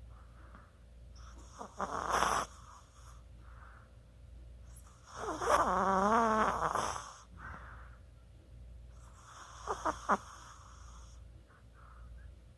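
Chihuahua snoring: three snoring breaths, about two seconds in, from about five to seven seconds, and about ten seconds in. The middle snore is the longest and loudest, with a wavering pitched tone, and the last ends in a few short clicks.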